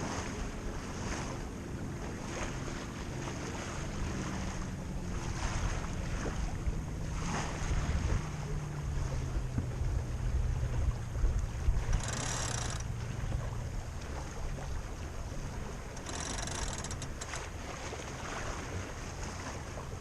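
Wind rushing over the microphone and water washing past a sailboat's hull, with a low hum that slowly falls in pitch through the middle. Two brief high hissing bursts come about twelve and sixteen seconds in.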